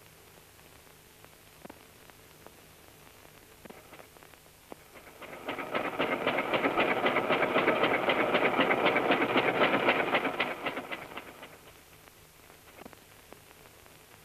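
A rapid, evenly repeating mechanical clatter that fades in about five seconds in, holds for about five seconds, then fades away, with a few faint scattered clicks before it.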